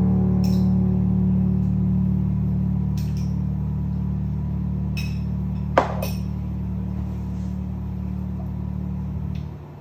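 The backing music's final chord held and slowly fading, then dropping away near the end. A few faint clicks and one sharp knock sound over it about six seconds in.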